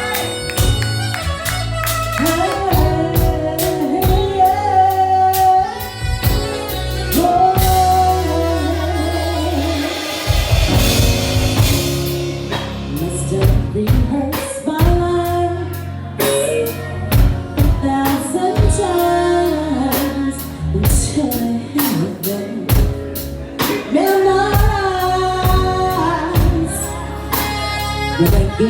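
Live R&B band with bass, drum kit and guitar playing while a female singer sings over it, with a cymbal wash about ten seconds in.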